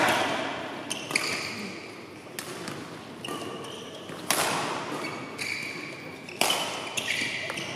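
Badminton rally: rackets smacking the shuttlecock every second or two, each sharp hit ringing briefly in the hall, with shoes squeaking on the court between shots.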